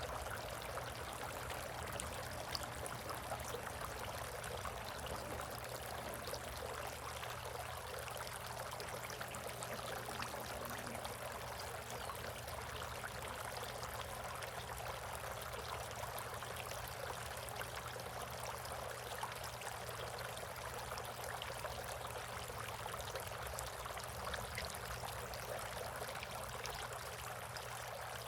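Steady trickle of running water in a bird bath.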